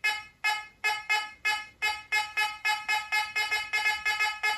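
Fisher F44 metal detector's target tone: a quick series of short beeps at one steady pitch, about three a second and quickening toward the end, as the coil is swept back and forth over a worn zinc 5 Reichspfennig coin. The detector gives a stable, repeatable signal on the coin.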